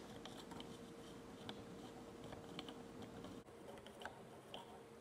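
Faint, irregular light clicks of a stirrer knocking inside a calorimeter as the water is stirred by hand, over a faint steady hum.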